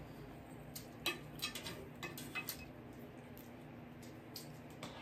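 Faint eating sounds at a table: a scattered run of light clicks and taps, most of them between about one and two and a half seconds in.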